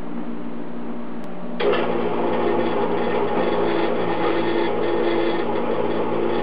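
Vertical bandsaw running steadily, coming in suddenly about a second and a half in over a low shop hum.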